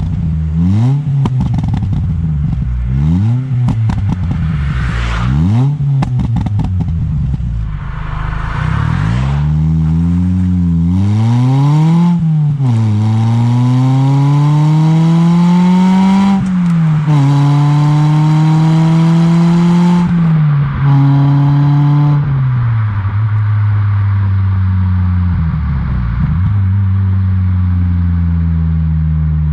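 Ford Fiesta ST150's 2.0-litre four-cylinder engine through a loud custom stainless steel exhaust: a run of quick throttle blips, each rising and falling, with crackles and pops in between. It then pulls through the gears, the pitch climbing and dropping back at each change, and settles into a steady run for the last several seconds.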